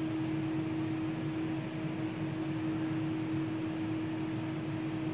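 Steady hum of running fans: a soft, even rushing hiss with one steady low tone under it.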